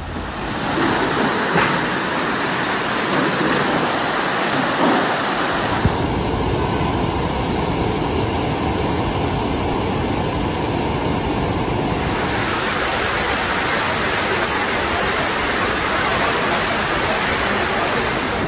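Fast floodwater rushing through streets, a loud steady roar of water noise. Its tone changes abruptly about six seconds in and again about twelve seconds in.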